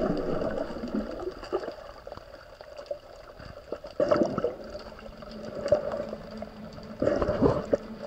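Muffled underwater water noise picked up by a submerged camera, with irregular gurgles and splashy bursts, loudest about four seconds in and again around seven seconds.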